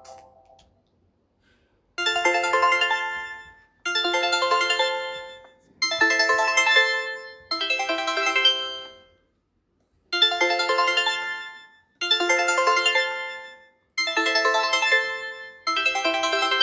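A Nokia Lumia 520 ringtone: a short, bright, chiming melodic phrase of about two seconds, repeated over and over from about two seconds in. A fading note comes first, then a brief silence.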